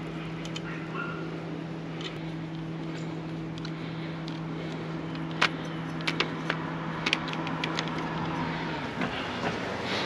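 Sharp metallic clicks and taps of an Allen wrench working a bolt on an e-bike frame, several close together in the second half, over a steady mechanical hum that cuts off near the end.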